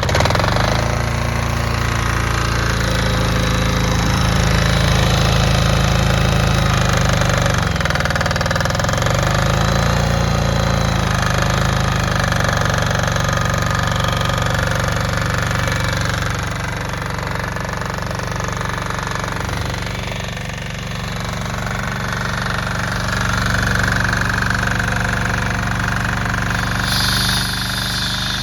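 Small Yanmar diesel engine running steadily just after starting, its speed sagging briefly twice before recovering.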